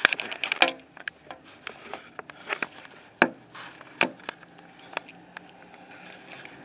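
Scattered sharp clicks and knocks, most of them in the first second, of the kind made by handling a hand-held camera. A faint steady low hum of a truck engine comes in at about six seconds.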